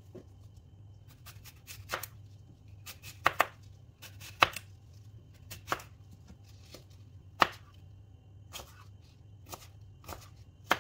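Small kitchen knife cutting an apple into pieces on a plastic cutting board: irregular sharp knocks of the blade striking the board, roughly a second apart.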